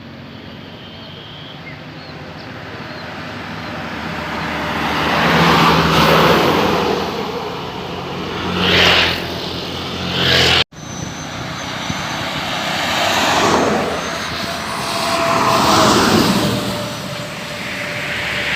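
Road traffic: motor vehicles pass one after another, their engine and tyre noise swelling and fading over a low engine hum. The sound breaks off abruptly about ten seconds in and picks up again.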